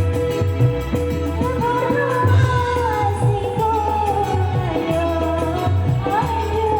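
A Sasak singer performing live over electronic keyboard accompaniment with a steady bass beat. The voice comes in about a second and a half in with long, wavering held notes.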